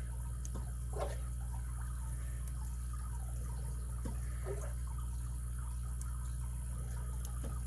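Faint ticks and short scraping squeaks of a lock pick working the pins of a five-pin KW1 lock from the bottom of the keyway, over a steady low hum.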